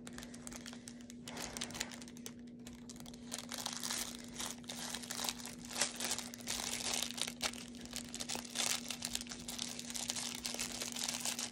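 Plastic packaging crinkling and rustling in the hands, with irregular small crackles, as an item is unwrapped and handled. A steady low hum runs underneath.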